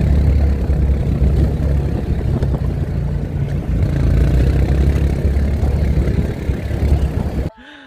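Quad bike (ATV) engine running steadily with a low drone, stopping abruptly near the end.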